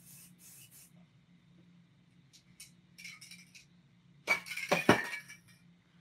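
Short, faint hisses of an aerosol spray-paint can sprayed in quick bursts through a paper stencil. About four seconds in comes a louder burst of handling noise with a couple of sharp knocks, as the stencil is lifted off.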